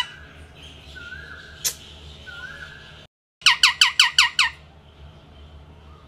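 Indian ringneck parakeet calling: two soft short calls and a single sharp click, then about three and a half seconds in a fast run of about seven loud, harsh squawks, each falling in pitch.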